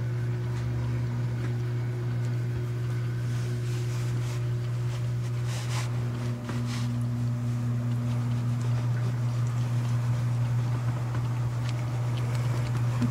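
A Persian cat purring steadily and without a break while being scratched under the chin, a sign of contentment.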